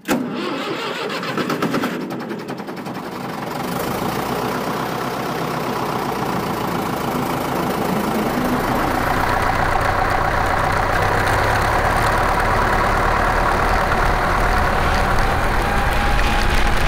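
1956 Case 405 orchard tractor's rebuilt 251 cubic-inch four-cylinder diesel engine starting up in the first couple of seconds, then running, its deep sound building louder over the rest.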